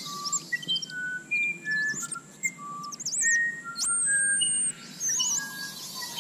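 Forest birds calling: many short clear whistles at different pitches, scattered irregularly, with high warbling trills above and one long high whistle about four seconds in.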